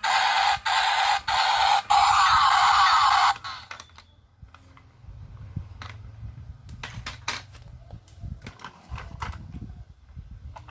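A loud, harsh electronic sound effect from a battery-powered toy, broken by brief gaps, stops suddenly about three and a half seconds in. Scattered plastic clicks and knocks from the toys being handled follow.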